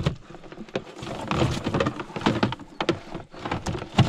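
Irregular slaps and knocks in a boat, several a second at varying strength, from a freshly landed carp flapping while it is handled in the cast net.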